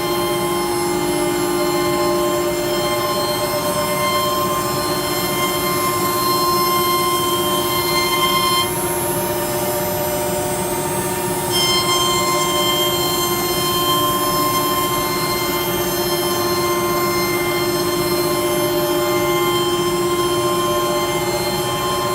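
CNC router running, a steady machine whine made of several held tones, from a low hum up to a high pitch. About nine seconds in, the upper tones drop out for about three seconds, then come back.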